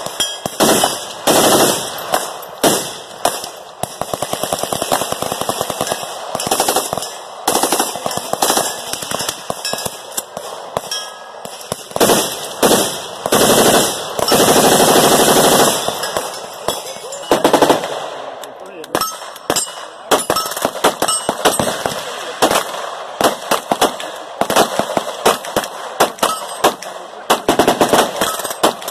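Gunfire from a firing line of AR-style rifles and other firearms shooting at once: a dense, rapid crackle of overlapping shots with no let-up. Past the middle, fire runs together into one unbroken burst lasting about two seconds.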